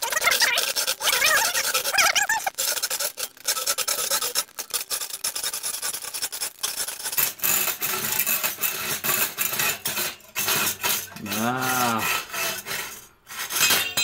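Hand hacksaw cutting through a sheet of scrap metal clamped to a workbench, in steady back-and-forth rasping strokes. The sawing stops near the end.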